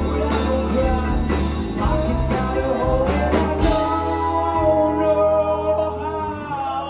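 Live rock band playing, with guitar, bass, drums and singing. The drum hits stop about halfway through, while held notes and the bass carry on.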